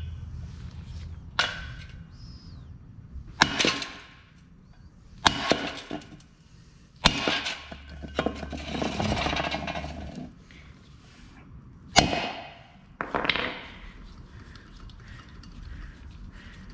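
Hammer blows on a hand impact (slap) screwdriver, set in the T30 Torx screw that retains the brake rotor to the hub, to break the screw loose: a handful of sharp metallic strikes a few seconds apart, each ringing briefly, with scraping of the tool and rotor between them.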